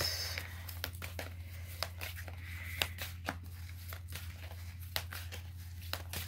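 A deck of tarot cards being shuffled by hand: irregular soft clicks and slaps of card against card, over a steady low hum.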